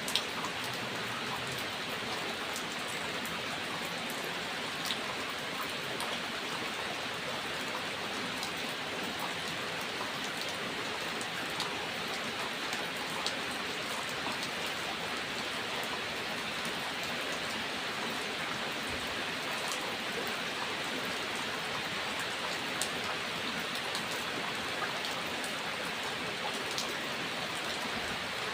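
Steady rain falling, a constant hiss with many individual drops ticking sharply on a hard surface.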